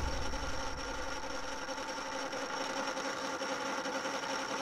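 A machine running steadily: an even hum of several held tones with a thin high whine over it.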